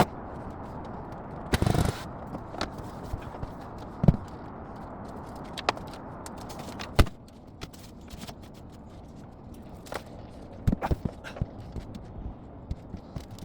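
Irregular knocks, thumps and scrapes of things being handled and moved about in a caravan, over a steady background noise that drops about seven seconds in.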